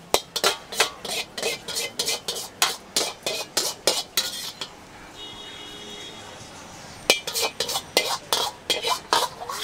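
Metal ladle clanging and scraping against a wok while fried rice is stirred and tossed, about three strikes a second. The strikes come in two runs with a pause of about two seconds between them.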